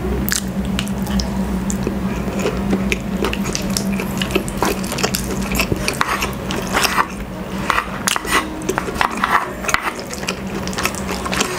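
Close-miked eating sounds: chewing with a rapid run of wet clicks and smacks, and wooden spoon and fork tapping and scraping on a wooden plate as braised pork leg is pulled apart.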